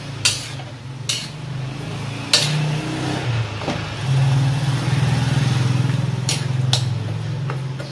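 Metal spatula clinking and scraping against a metal wok as vegetables are stirred, with several sharp clinks. Under it runs a steady low motor drone that gets louder about halfway through.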